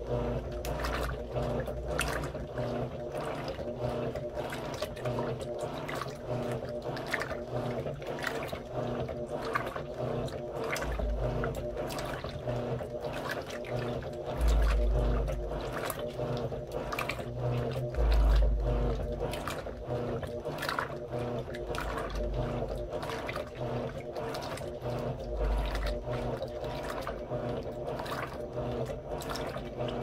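Electrolux LM13Q top-load washing machine in its agitation stage: wet curtains churning back and forth in soapy water over the motor's hum, in quick swishing strokes. A few heavier low thuds come through, the loudest about 15 and 18 seconds in.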